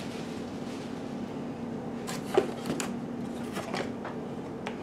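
A gray plastic plate and parts being handled and lifted out of a cardboard box: a few short clicks and rustles of plastic, cardboard and packing, over a steady faint hum.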